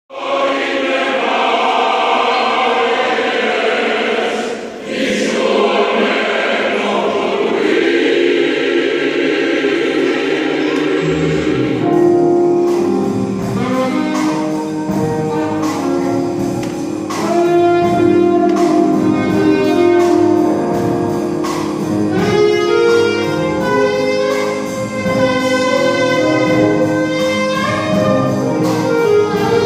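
Mixed choir singing in a reverberant church. About twelve seconds in, instrumental accompaniment with a bass line and a steady beat joins the voices.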